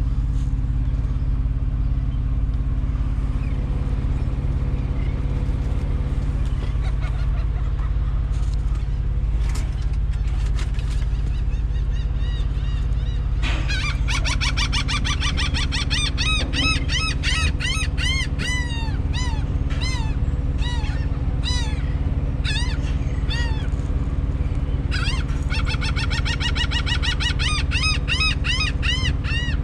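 Diesel semi-truck engine idling steadily. From about halfway through, a flock of birds calls over it in rapid, repeated squawks, pausing briefly near the end before starting again.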